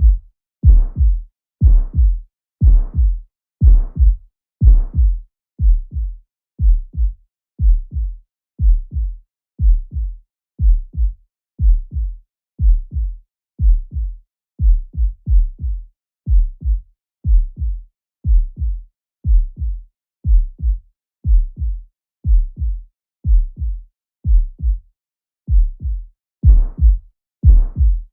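Heart sounds heard through a stethoscope at about one beat a second. For the first five seconds and again near the end, each beat carries the harsh systolic murmur of aortic stenosis, which reaches far higher in pitch. In between is the plain lub-dub of a normal heart.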